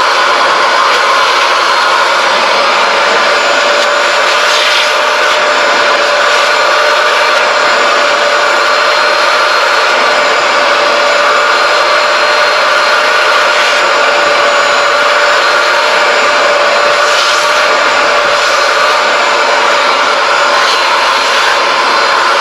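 Vacuum motor running steadily with a constant whine.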